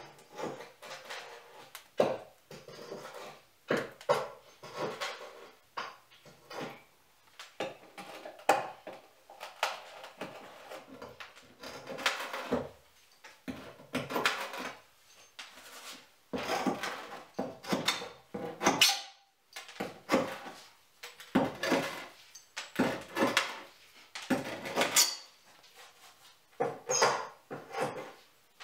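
Nails being worked out of old wooden floorboards with hand tools: irregular metal clinks, scrapes and knocks against the wood.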